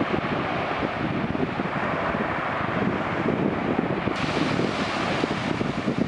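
Small sea waves washing on a sandy shore, with wind buffeting the microphone in uneven low gusts. About four seconds in, the hiss abruptly turns brighter.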